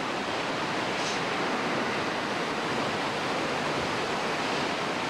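Steady, even rushing noise with no separate sounds in it, like wind or the distant din of a city.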